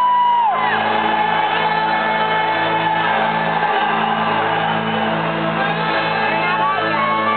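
Rock concert crowd cheering over steady, low, sustained music from the PA just before the band's opening song, with a loud whoop near the start and a few more shouts later.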